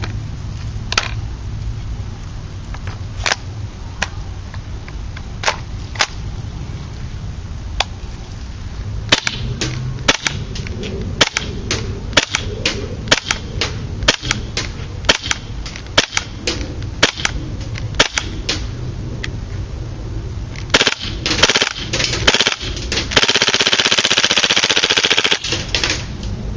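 KSC MP9 gas-blowback airsoft submachine gun firing: single sharp shots with the bolt cycling, spaced irregularly and coming faster as it goes on, then a rapid burst of about two seconds near the end.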